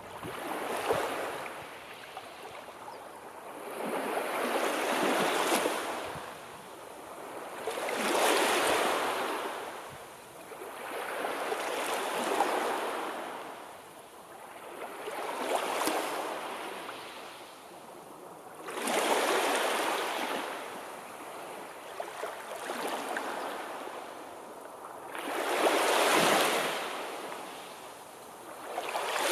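Sea waves breaking and washing on the shore, the surf rising and falling in slow swells about every three to four seconds.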